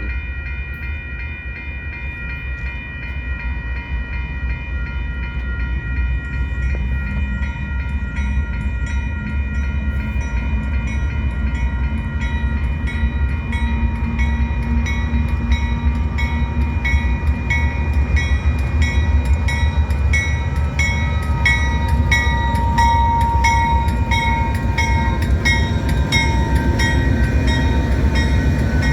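Pair of Union Pacific GE diesel locomotives, an AC4400CW and an AC6000CW, running light with no cars: a deep engine rumble with a steady whine, getting louder as they come by. Partway through, one whining tone slides down in pitch, and in the second half the wheels click over the rail joints in a quickening rhythm.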